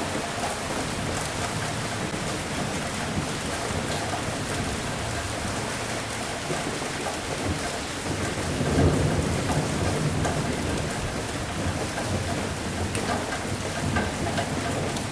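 Steady heavy rain falling, with a roll of thunder rumbling up about halfway through and fading over a couple of seconds.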